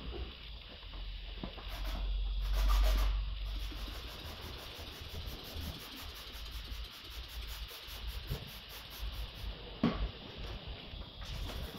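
Wet sandpaper rubbing back and forth over the primed body panels of an Audi A6, in repeated scrubbing strokes. A single sharp knock sounds near the end.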